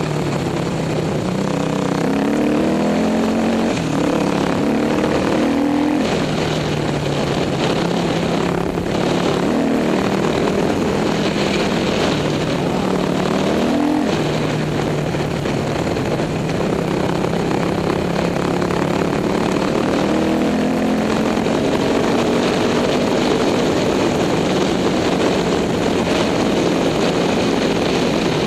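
Dirt bike engine revving up through the gears, its pitch climbing and then dropping sharply at each shift, several times over. Steady wind noise runs underneath on a helmet-mounted microphone.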